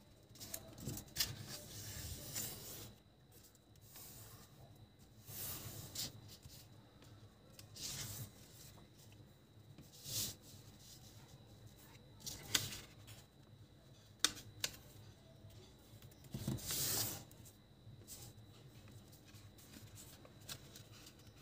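A sheet of printer paper being folded by hand on a table: short rustles and crisp creasing strokes as the folds are pressed flat, in separate bursts every couple of seconds, the loudest about two thirds of the way in.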